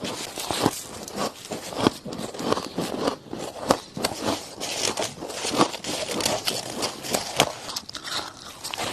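Soft frosty crushed ice being bitten and chewed, a dense, irregular run of crisp crunches and crackles several times a second.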